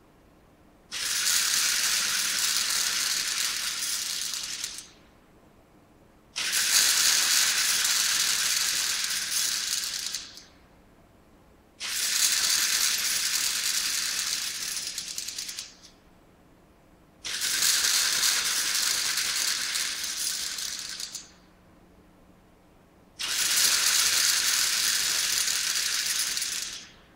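Pragotron split-flap letter units flipping their flaps as the board rewrites its lines: five bursts of fast rattling, each about four seconds long and tapering off at its end, with short pauses between them.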